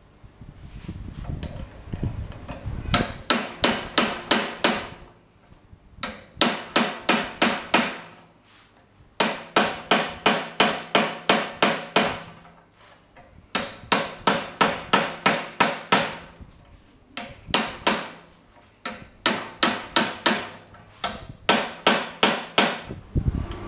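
Hand hammer striking a chisel held against red-hot rebar in a vise, metal on metal, chiselling detail into a forged dragon head. The blows come in quick runs of about six to nine, roughly four a second, each ringing briefly, with short pauses between runs.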